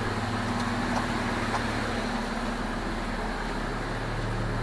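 Freshly swapped Chrysler 3.7-litre V6 in a 2002 Jeep Liberty idling steadily and smoothly, running normally.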